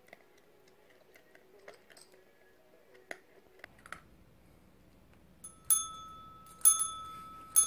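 Chrome desk bell (service bell) struck three times by a Maltese puppy's paw, about a second apart. Each strike gives a bright ding that rings on and fades.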